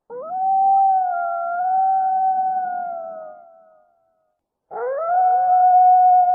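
Two long wolf-like howls. Each rises quickly and then holds steady on one pitch. The first fades out after about three and a half seconds, and the second starts about a second later.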